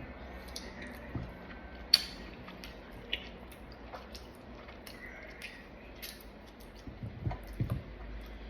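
Close-up eating sounds: wet chewing and squishing of fruit, with scattered small clicks, the sharpest about two seconds in, and a few soft low thumps near the end.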